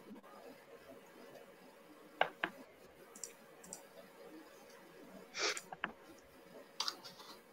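A few scattered small clicks and taps over faint room hiss: two about two seconds in, a longer scraping one past halfway followed by another click, and a couple more near the end.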